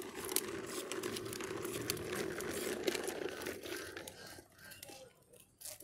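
Hard plastic wheels of a toddler's toy tricycle rolling over rough asphalt, a steady gritty crackle that fades away after about four seconds.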